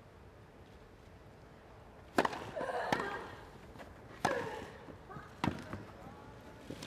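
Tennis rally: a hush, then about two seconds in a sharp racket-on-ball strike, with further strikes a second or two apart, three in all. Each strike is followed by a short grunt from the hitting player.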